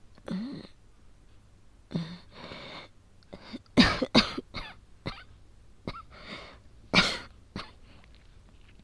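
A woman coughing through an asthma attack. Heavy breaths come first, then a cluster of about four harsh coughs about four seconds in, which is the loudest part. Single coughs follow, with a strong one about seven seconds in.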